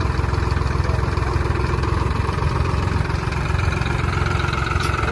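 Farmtrac 60 tractor's diesel engine running steadily at low revs.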